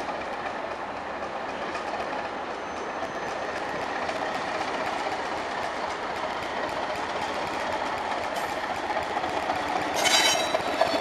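Northern Ireland Railways Class 450 diesel-electric multiple unit running into a platform, its English Electric diesel engine and wheels growing steadily louder as it approaches. About ten seconds in, a loud high-pitched squeal from the running gear starts as the unit comes alongside.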